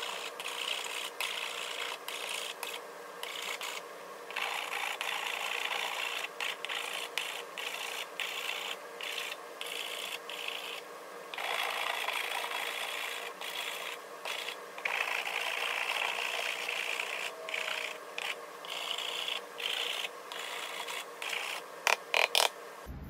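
A Shinto wood rasp filing the plastic of an ABS electrical box: repeated scratchy rasping strokes with short pauses between them. A few sharp knocks come near the end.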